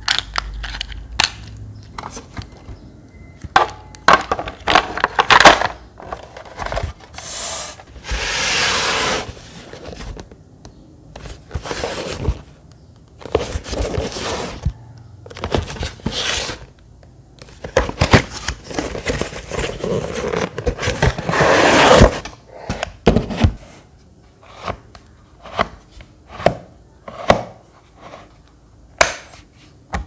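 Hands handling small plastic mini-fan parts and a cardboard box: scattered plastic clicks and knocks, with a few longer stretches of scraping and rubbing.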